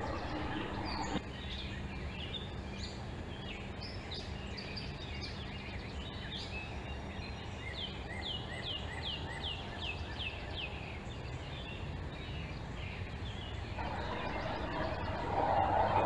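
Wild songbirds singing and chirping, a mix of short calls with a run of about eight quick falling whistled notes around the middle, over a steady low outdoor background hum.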